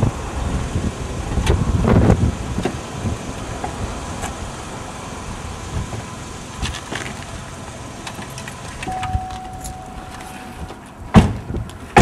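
A car's engine running as it pulls into a parking space, with a door being opened and handled. A steady electronic tone sounds for about two seconds past the middle, and two sharp, loud thumps near the end come from a door or the trunk lid.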